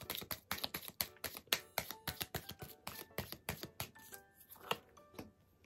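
Oracle cards being shuffled by hand: a quick, uneven run of soft card taps and flicks, several a second, thinning out near the end. Soft background music with single held notes plays underneath.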